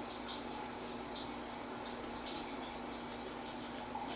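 A steady, even hiss, like running water, with a few faint ticks.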